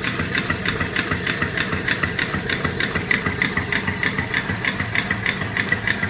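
Shop-built 3-horsepower steam engine (3-inch bore, 4-inch stroke) running under steam on its boiler, beating out a quick, even chuff about six or seven times a second over a steady hiss of steam.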